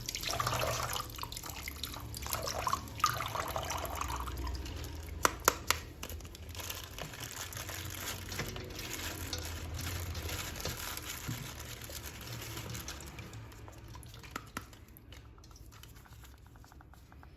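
Water running and splashing as a plastic action figure is washed, with a few sharp clicks of plastic about five seconds in. The water grows quieter near the end.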